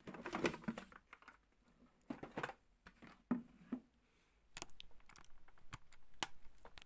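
Irregular light knocks, taps and clicks as a plastic waste bin and its lid are handled and set down on a wooden tabletop, with a quick run of sharp clicks near the end.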